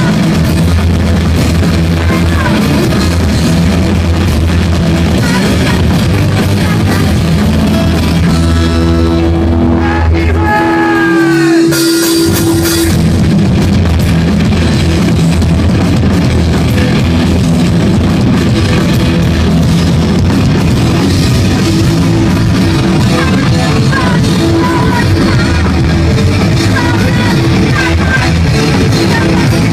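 A rock band playing live and loud through a club PA: electric guitars, bass and drum kit. About ten seconds in, the bass and drums drop out for a couple of seconds, leaving a held note with sliding pitch, and then the full band comes back in.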